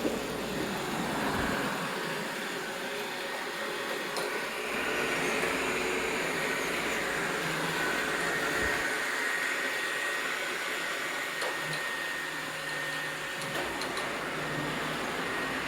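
Robot vacuum cleaner running with a steady whir, a faint high whine coming in about halfway through.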